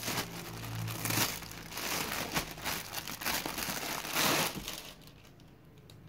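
Clear plastic packaging bag crinkling and rustling as a folded suit is pulled out of it by hand, dying away about five seconds in.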